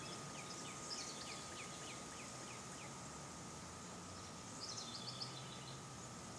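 Small birds chirping over a steady outdoor hiss. A run of short, quick, downward-sweeping notes plays for the first three seconds, then a brief higher trill comes near five seconds. A thin, steady high tone sits underneath.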